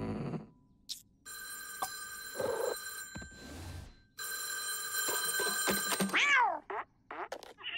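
Cartoon sound effects: a steady ringing tone, like a telephone bell, sounding twice with a short break, then a quick swooping pitch glide near the end.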